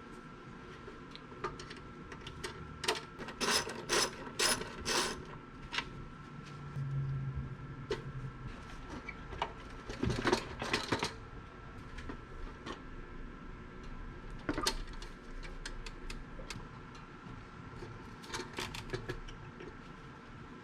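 Irregular clicks and clatter of hand tools, coming in clusters, over a faint steady tone.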